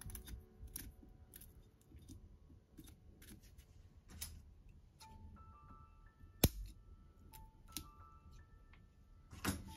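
Bonsai scissors snipping roots in a series of short, sharp clicks, the loudest about six and a half seconds in, over soft background music.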